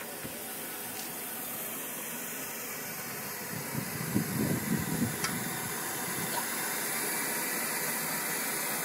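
Water running from a garden hose into a muddy dug channel: a steady hiss. A stretch of louder, lower noise with a few clicks comes about halfway through.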